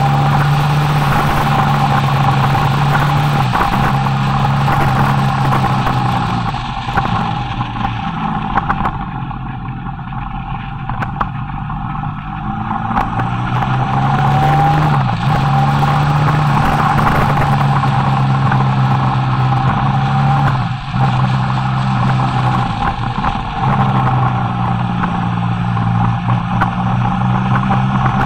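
Motorcycle engine running under way with wind rushing over the microphone. The engine note falls and picks up again several times with throttle and gear changes, and it goes quieter for several seconds about a third of the way in.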